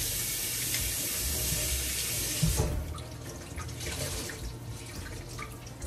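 Kitchen sink tap running, water splashing into the sink, shut off about two and a half seconds in; a few light knocks follow.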